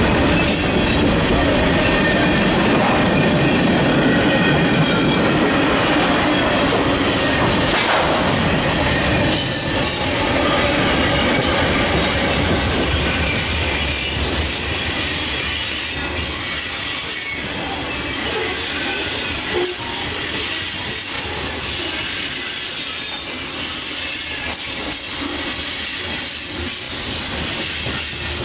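Freight train of tank cars and covered hoppers rolling past: steady rumble and clacking of steel wheels on the rails. High-pitched wheel squeal comes and goes, mostly in the second half.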